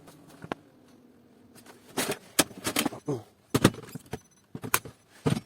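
Plastic clicks and knocks from a Kyocera laser printer being opened and its drum unit handled and pulled out. The first two seconds are almost still, then come a quick string of sharp clacks and rattles.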